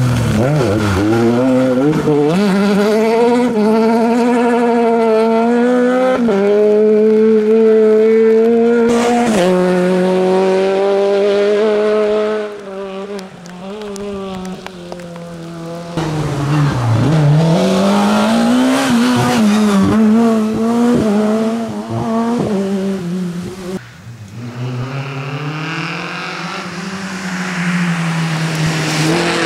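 Rally cars driving hard one after another on a wet tarmac stage, their engines revving high and dropping back again and again through gear changes and lifts, with the hiss of tyres on the soaked road.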